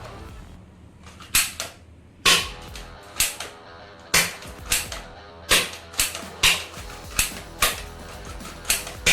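A toy gun firing a string of sharp snapping shots, irregularly spaced about one every half second to a second, starting a little over a second in, over background music.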